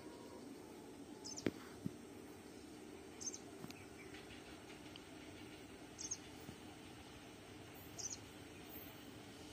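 A bird giving a short, high chirp four times, about every two seconds, over faint steady background noise, with a sharp click about a second and a half in.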